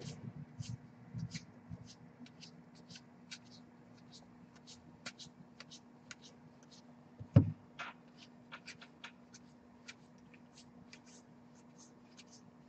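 Baseball cards from 2019 Gypsy Queen packs being handled: many light, quick clicks and slides as cards are flicked through and rubbed against one another. One thump about seven seconds in, over a steady low hum.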